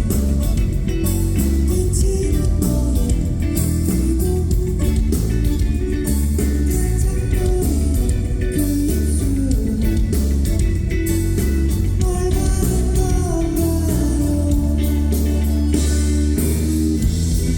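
Live band playing guitar-led music with bass and drums, with singing at times, recorded on a phone.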